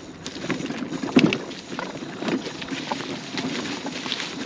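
Dry fallen leaves crunching and rustling underfoot in irregular bursts about once a second, as someone moves over a leaf-covered trail; the loudest crunch comes about a second in.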